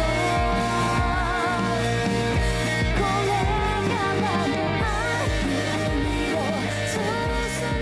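Pop-rock song with a sung vocal line over a steady drum beat.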